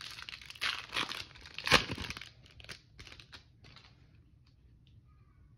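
Foil wrapper of a Panini Absolute football card pack torn open by hand, crinkling, loudest just under two seconds in. It is followed by a few lighter rustles and clicks as the cards are handled.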